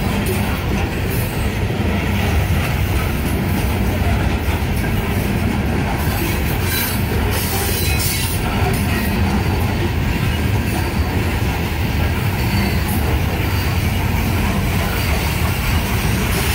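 Coal hopper cars of a freight train rolling past: a steady, loud rumble and clatter of steel wheels on the rails.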